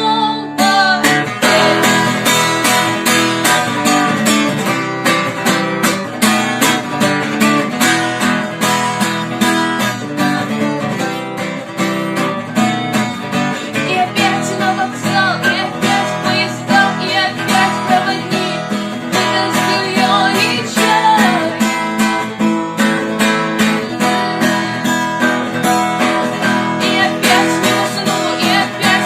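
Acoustic guitar strummed in a steady, driving rhythm.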